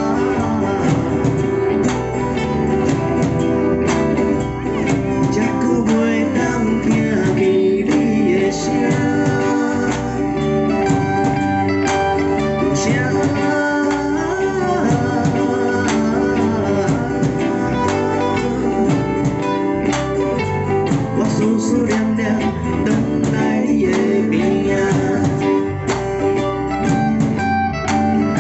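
Live band music: a man singing in Taiwanese Hokkien over strummed acoustic guitar, electric guitar and a drum kit.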